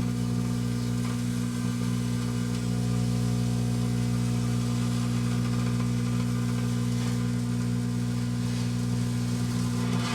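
1984 Kenmore microwave oven running with a loud, steady hum while Morning Glory sparklers burn inside it, their faint fizzing under the hum. Near the end a brief louder hiss flares up.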